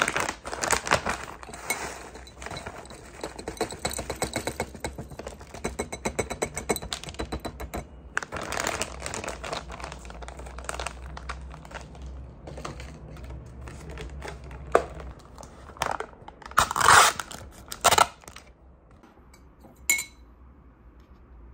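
Granola poured from a bag into a glass tumbler: a dense rattle of clusters landing on glass and on each other, with the bag crinkling and a metal spoon scraping against the glass. The pouring thins out after about ten seconds, followed by a few louder scrapes and a single clink near the end.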